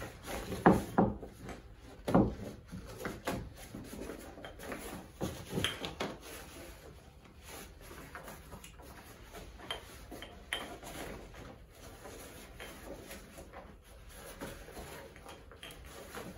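Synthetic bagpipe bag being handled as a stock is pushed through its collar from inside the bag: the bag rubbing and rustling, with a few knocks of the stock, louder in the first few seconds and then quieter rubbing and small clicks.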